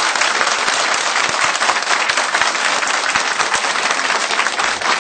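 A crowd of people applauding, a dense steady clapping of many hands.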